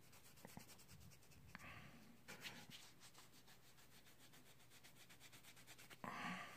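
Soft cloth buffing a leather bund watch strap: faint dry rubbing in a few short strokes, the last one near the end the loudest.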